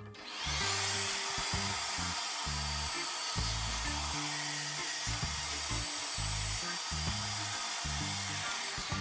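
SawStop jobsite table saw switched on, running up to speed and cutting through a board, with a steady high whine. It shuts off near the end.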